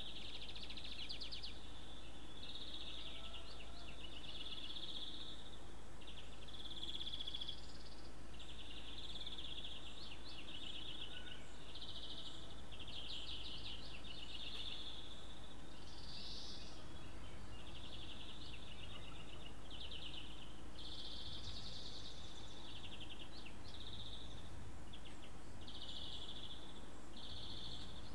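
Outdoor morning ambience of high, rapidly pulsed chirping trills, one short phrase after another with hardly a gap, over a faint steady low hum.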